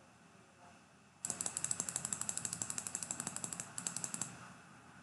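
Computer mouse scroll wheel being rolled: a fast, even run of small ratcheting clicks, about ten a second, lasting about three seconds with a brief break near the end, as the chart is zoomed in.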